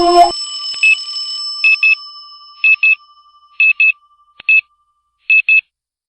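Synthetic emergency-alert tones: a loud sustained alarm chord cuts off abruptly just after the start, leaving a few high tones that fade away, followed by short high electronic beeps, mostly in pairs, about once a second.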